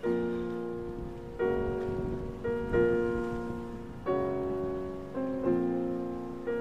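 Background piano music: slow chords struck roughly once a second, each ringing and fading before the next.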